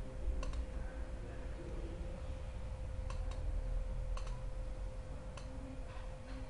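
Computer mouse buttons clicking about six times at irregular intervals, with a pair close together about three seconds in, over a steady faint electrical hum.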